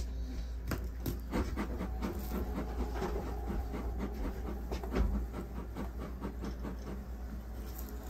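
Hand drywall saw rasping back and forth through plasterboard in short, irregular strokes.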